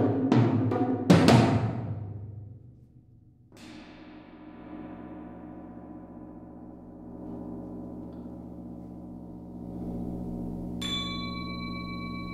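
Solo percussion: a few hard drum strokes in the first two seconds die away. About three and a half seconds in, a large gong is struck once and rings on with a long, many-toned sustain that slowly swells. Near the end, a small metal bell-like instrument is struck, adding a clear high ringing tone over the gong.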